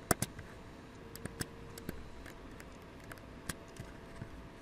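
Computer mouse clicking: a handful of sharp, irregularly spaced clicks, the loudest right at the start, over a faint steady hum.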